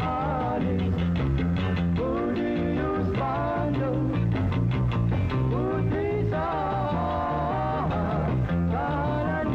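Male vocalist singing lead over a kugiran-style electric band of guitars, bass guitar and drums, holding some long notes in the melody.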